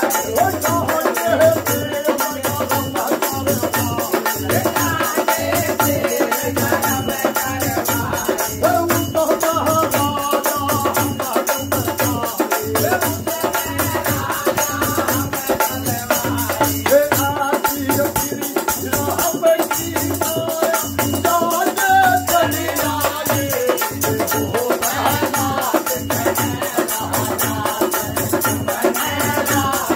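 Dehati bhajan folk music: a dholak drum keeping a steady beat, a chimta's metal jingles rattling in time, and a man singing the melody over them.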